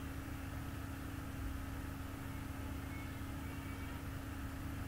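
Steady low hum over a faint even hiss: constant background noise with no events.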